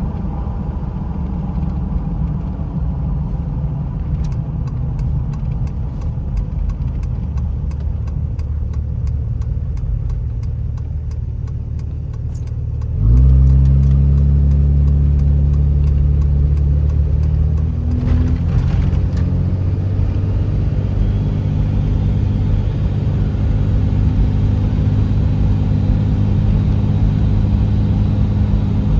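5.9 L Cummins diesel truck driving at a steady cruise, then about halfway through the engine note jumps sharply louder as it comes under heavy throttle and pulls hard. A few seconds later the pitch steps, and it runs on as a steady, loud drone under load.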